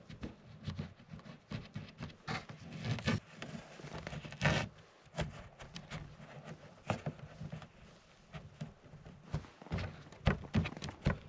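Scattered soft knocks, scrapes and rustles of a stretchy rope being threaded and tied through the rim of a plastic pull sled, with one louder knock about halfway in.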